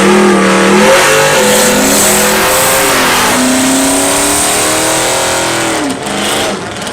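Drag-racing car engine at full throttle, loud, its pitch climbing and dropping as it revs, for about six seconds before falling away near the end.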